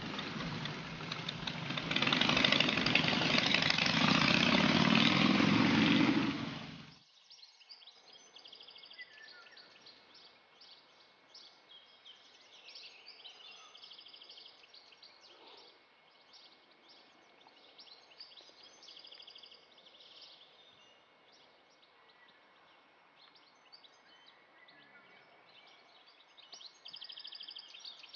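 Harley-Davidson Sportster V-twin engine running, louder from about two seconds in, stopping suddenly about seven seconds in. Quiet outdoor ambience with birds chirping follows.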